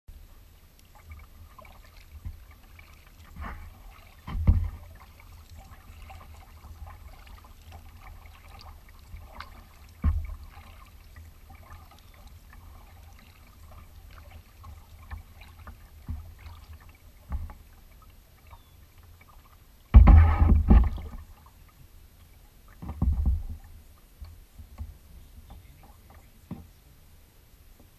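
Kayak paddling on calm water: paddle strokes and water lapping and dripping against the hull, over a steady low rumble. A few sudden knocks and splashes stand out, the loudest a cluster about twenty seconds in.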